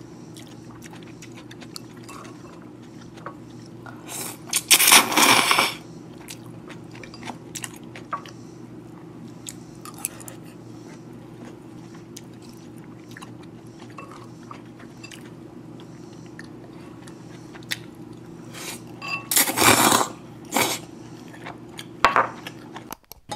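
A person eating chilled brown-rice somen noodles with chopsticks. There are two loud slurps, about five seconds in and again near twenty seconds, with chewing and light clicks of chopsticks against a ceramic bowl, over a steady low hum.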